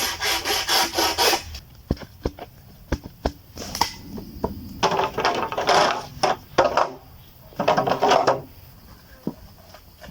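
Wood being sawn by hand: three bouts of rhythmic saw strokes, with scattered knocks and clicks between them.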